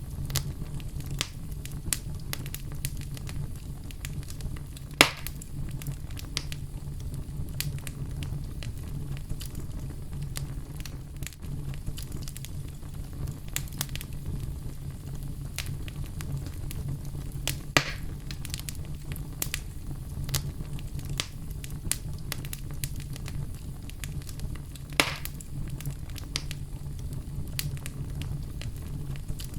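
Oak logs burning in a fireplace, crackling steadily over a low rumble of flame, with three louder pops about 5, 18 and 25 seconds in.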